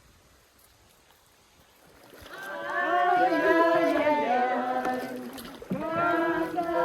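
Several voices singing a song together, starting about two seconds in after a quiet opening.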